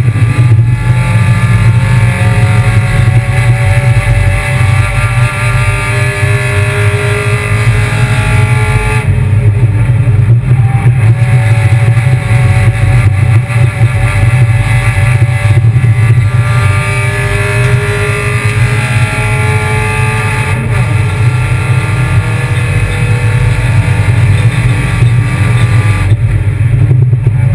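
Kia Picanto race car's engine working hard, its pitch climbing again and again as it accelerates through the gears. Each climb breaks off as the driver lifts or shifts, about a third of the way in, just past halfway and near the end. A constant low drone runs underneath.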